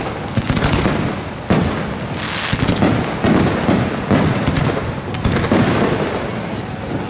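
Fireworks going off: a dense, continuous crackle of rapid overlapping pops, with sharper bangs standing out about a second and a half in and several times after.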